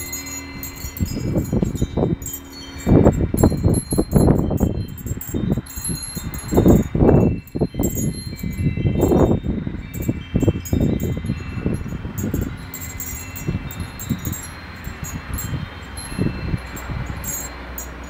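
Tube wind chime ringing in the wind, its tubes struck again and again in overlapping high tones. Several loud low rumbles of wind gusting against the microphone come through, mostly in the first half.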